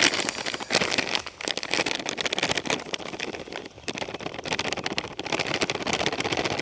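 Dry ground-expander groundbait pouring from a plastic bag into a plastic bowl: a steady grainy hiss of many fine crackles, with the bag crinkling.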